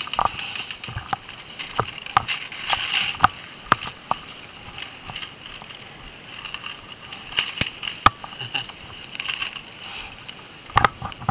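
Paintball markers firing: sharp pops coming irregularly, singly and in quick pairs and short strings, some louder and closer than others.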